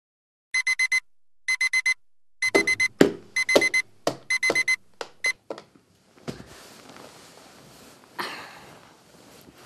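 Electronic alarm clock beeping in quick groups of four, about one group a second, while a hand slaps and fumbles at it with dull thumps; the beeping cuts off about five seconds in as it is silenced. Bedclothes then rustle, with a louder rustle near the end.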